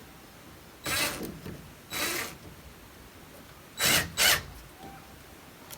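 Drill driving screws into wood in four short bursts, two close together near the end, fastening a wooden handle to a door.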